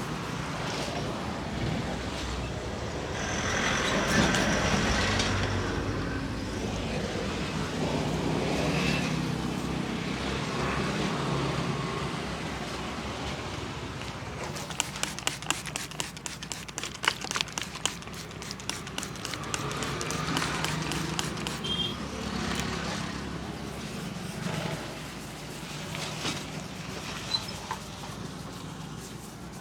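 Road traffic passing, rising and fading in waves as vehicles go by. About halfway through, a few seconds of quick slaps, several a second: a barber's hands tapping a customer's head in a massage.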